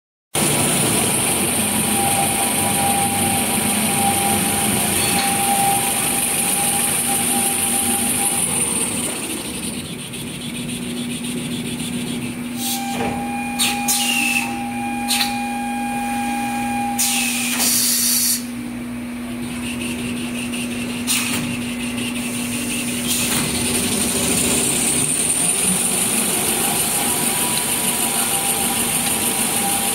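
Kitchen-towel paper rewinding machine running: a steady mechanical hum with a high hiss, and a few sharp clicks and knocks about halfway through.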